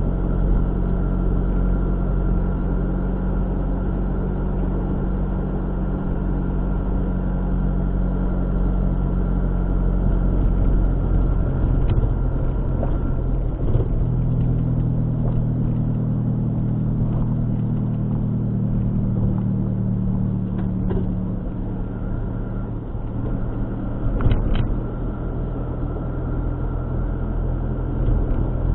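A car being driven: steady engine hum and road noise. The engine note shifts to a different pitch about halfway through, and a few light clicks or knocks come through near the middle and toward the end.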